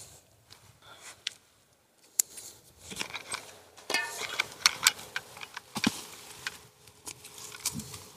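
Scissors snipping through the thin wire and string ties on a white cloth winter cover, with the cloth rustling and crackling as it is pulled loose. A few scattered clicks at first, then a busy run of sharp snips and rustling from about two seconds in.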